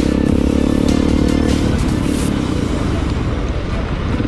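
Honda XR150's single-cylinder four-stroke engine running at a steady speed while riding, heard with wind and road noise. About a second and a half in, the steady engine note drops away and the wind and road noise takes over.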